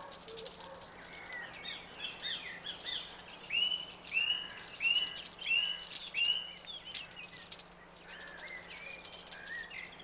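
Outdoor birdsong from several birds, with a run of about five clear, arched whistled notes from one bird around the middle. A dense, fine, high-pitched ticking runs beneath it.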